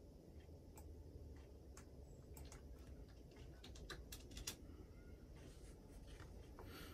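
Near silence: faint room tone with a low hum, and a cluster of light clicks in the middle.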